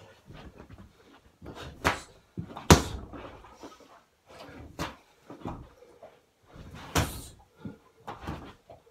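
Blows landing on a free-standing punching bag: an irregular run of thuds, two much harder ones about three seconds and seven seconds in.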